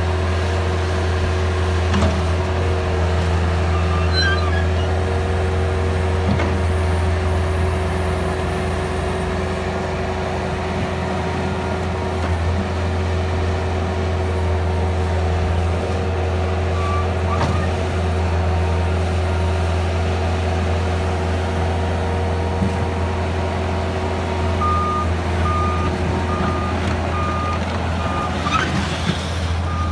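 Bobcat T190 compact track loader's diesel engine running steadily as the machine works and drives. Near the end its backup alarm sounds a series of short, evenly spaced beeps, a little more than one a second.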